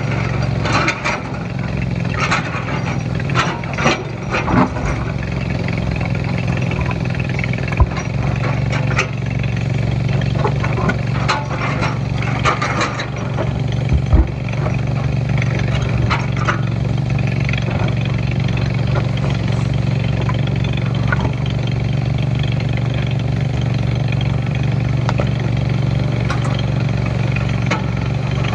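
Heavy diesel engine of an excavator running steadily, with a few sharp knocks in the first half.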